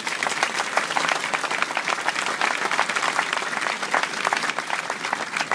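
Audience applauding: many hands clapping at once, at a steady level.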